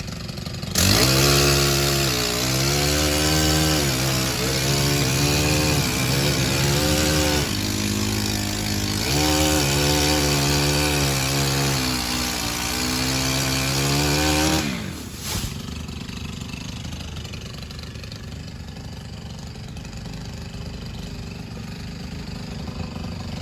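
Two-stroke chainsaw revving and cutting wood, its pitch rising and falling with the throttle for about fourteen seconds. It stops about fifteen seconds in, leaving a quieter steady engine sound.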